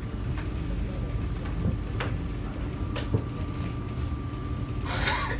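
Interior of a Kawasaki & Nippon Sharyo C751B MRT train car: a steady low rumble and a constant high equipment hum, with a few sharp clicks and a short burst of hiss near the end.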